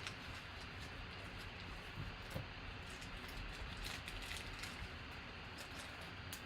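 Trading cards and foil card-pack wrappers being handled: faint rustles and light clicks, with a few slightly louder taps about two and four seconds in.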